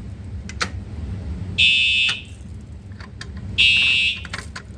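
Fire alarm horn sounding two short blasts about two seconds apart, with a few light clicks before and between them. This is an audible walk test tapping out device number 11 (one pulse for the tens, one for the ones) after the pull station is activated.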